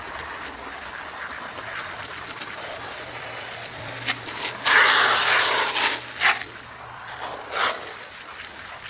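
Water spraying from a hose in a steady hiss, swelling to a louder rush for about a second midway, with a couple of short surges after.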